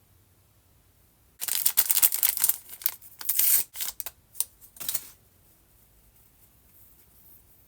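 Toy packaging being crinkled and torn open by hand: a dense run of crackles and rustles starting about a second and a half in and stopping about two and a half seconds before the end.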